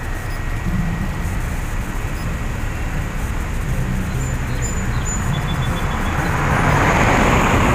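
Street traffic heard from a bicycle: a steady low rumble with wind on the microphone, then a passing car's tyre whoosh swells about six seconds in and peaks near the end.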